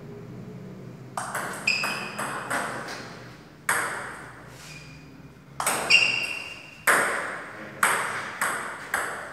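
Table tennis rally: the ball clicks sharply off the paddles and bounces on the table, at irregular intervals of about half a second to a second, starting about a second in. Some hits leave a short ringing ping.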